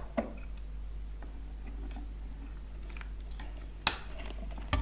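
Faint scattered clicks and taps, with one sharper click about four seconds in, over a steady low hum: speaker wires being handled and connected to an amplifier board.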